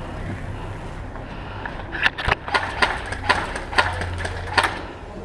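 Airsoft M4-style rifle firing single shots: about seven sharp cracks, irregularly spaced, starting about two seconds in and stopping near the end.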